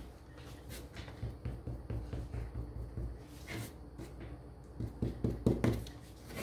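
Hands handling small wooden craft pieces and a wipe on a tabletop: a brief rustle, then scattered light knocks and taps, with the loudest few about five seconds in.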